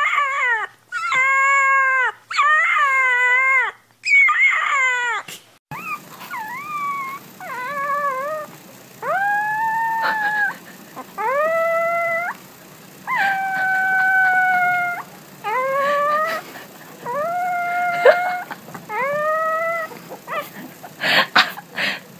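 Puppies howling: one puppy gives about four short, wavering howls, then a second puppy howls about eight times in a row. Each howl lasts about a second, rising at the start and then holding, with short pauses between them.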